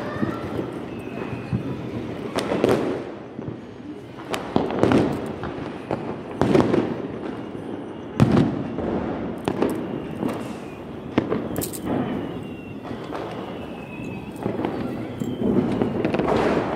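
Diwali firecrackers going off all around, irregular loud bangs and fainter distant pops over a steady crackling din, with a few faint whistles.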